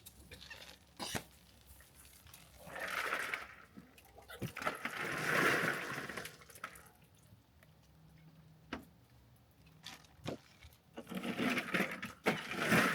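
Water splashing and sloshing in three swells, with a few sharp knocks in between.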